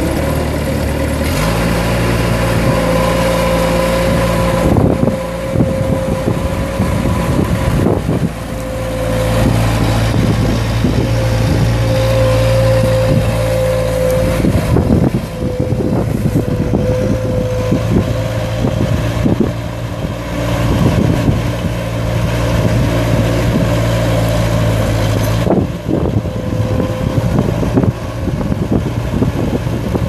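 Bobcat 753C skid steer's Kubota V2203 2.2-litre four-cylinder diesel running while the machine drives, its engine note rising about a second in and dropping back near the end. A steady whine sits over the engine, with occasional knocks.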